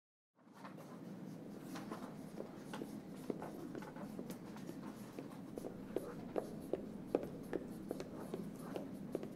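Quiet classroom room tone with a low steady background and light pencil-on-paper writing taps about twice a second, starting about half a second in after dead silence.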